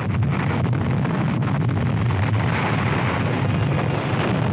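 Steady, deep rumble of a hydrogen bomb blast, a continuous noise with no breaks, laid over the footage of the fireball.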